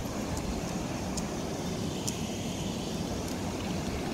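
River water rushing through the sluice gates of a weir, a steady low-pitched noise.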